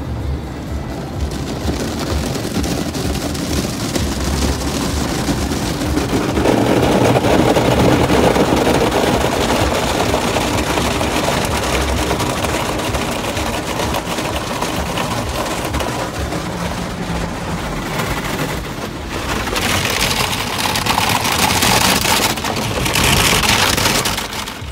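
Cloth wash brushes of a Ryko Softgloss XS2 automatic car wash slapping and scrubbing over a car, with water and soap spraying on the glass, heard from inside the car. It grows louder about six seconds in, and a hissing spray swells twice near the end.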